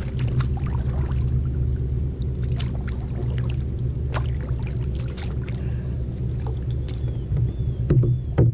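A steady low hum with scattered light clicks and taps from a fishing kayak on the water.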